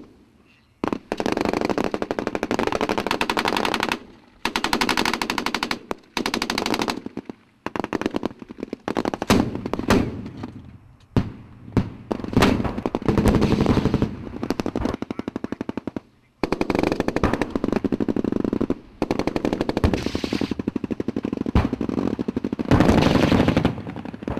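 Sustained automatic gunfire in long bursts of rapid shots, each burst lasting a few seconds, with short pauses between them.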